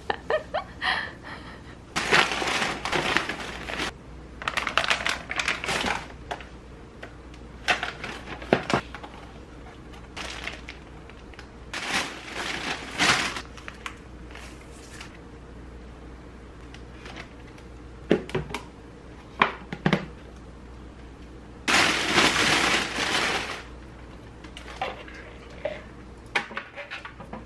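Plastic shopping bags rustling and crinkling in bursts of a second or two as items are taken out, with a few short knocks of things being set down on the counter.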